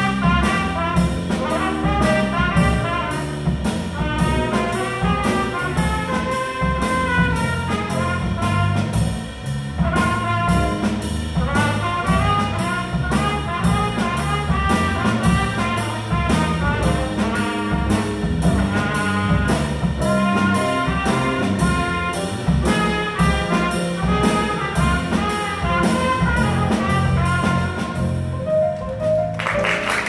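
Small jazz combo playing live: trumpet and saxophones play moving lines together over piano, bass and a drum kit keeping a steady beat. The cymbal strokes stop shortly before the end.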